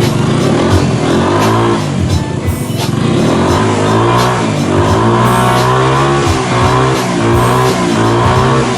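Honda Smart Dio AF57 scooter's small four-stroke engine running and being revved up and down repeatedly, over background music.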